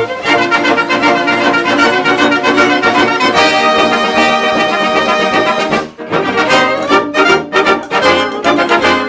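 Orchestral background music led by brass. It drops away briefly about six seconds in, then returns as shorter, punchier chords.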